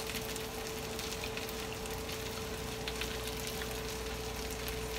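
Squash and onion frying in butter in a pan, a steady sizzle, with a steady hum underneath.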